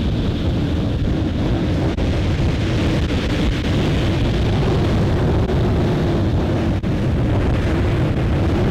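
Heavy surf breaking and washing up a shingle beach in a steady, loud rush, with wind buffeting the microphone.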